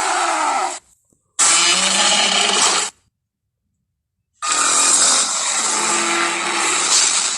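Mosasaurus roar sound effects from the Jurassic World films: harsh, rasping roars with dead silence between them. One ends about a second in, a shorter one of about a second and a half follows, then a longer one of about three seconds.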